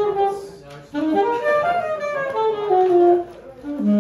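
A saxophone playing quick jazz runs: one short phrase, a break about a second in, then a longer run of changing notes and a last note near the end.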